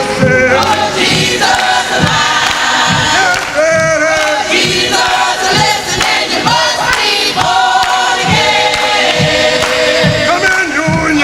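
Gospel choir singing over a steady low drum beat.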